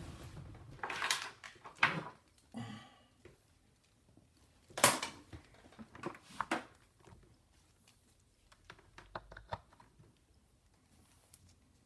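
Scattered clicks and knocks from equipment being handled while a multimeter test is set up. The sharpest click comes about five seconds in, with smaller taps and rattles before and after.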